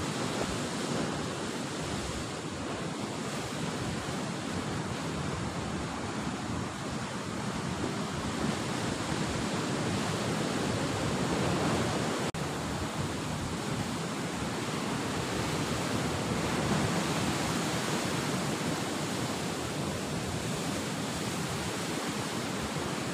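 Ocean surf breaking and washing against the rocks below, a steady rushing wash of waves.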